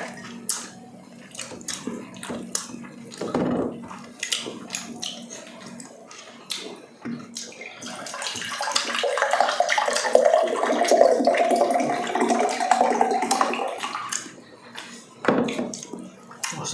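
Small clicks and clinks of eating and dishes, then from about eight seconds in water pouring steadily into a glass for about six seconds, its tone rising slightly.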